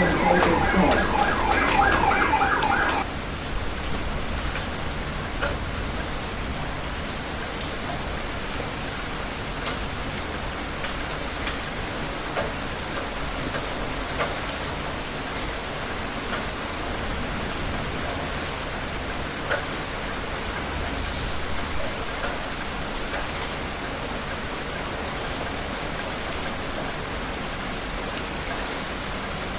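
Steady rain falling, with scattered sharp drop ticks. For the first three seconds a high, rapidly pulsing pitched tone sounds over the rain, then stops abruptly.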